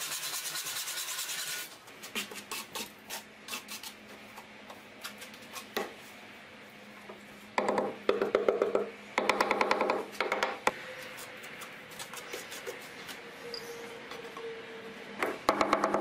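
Hand saw cutting through an aerated concrete block in quick sawing strokes, followed by scattered light taps and knocks as blocks are set. Two more stretches of repeated scraping strokes come about eight and ten seconds in, and a short one near the end.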